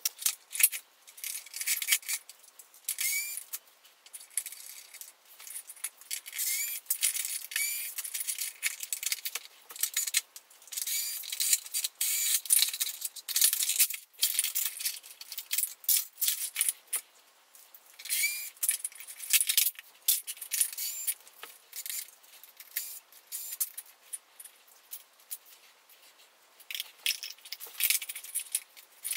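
Rapid, high-pitched clinking and clattering of plastic housing parts and small metal screws being handled and pulled out of a vacuum cleaner, in busy bursts with short pauses. Now and then a short rising whir of a cordless screwdriver spinning up.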